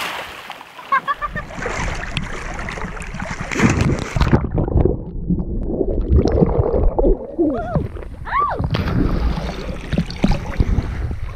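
Splashing sea water as swimmers plunge and thrash in the water. About four seconds in, the sound turns muffled and bubbling as the camera goes under the surface, then opens up again to splashing and sloshing near the end as it comes back up.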